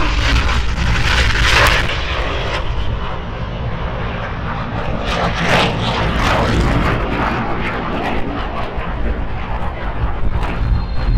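Roar of the Blue Angels' F/A-18 fighter jets flying low overhead in formation. It swells loudest about a second and a half in and again around five and a half seconds.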